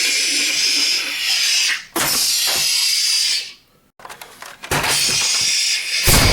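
Sound effects of the ramming crash: a loud hissing rush that cuts off after about three and a half seconds, a brief silence, then another rush, with a deep boom coming in near the end.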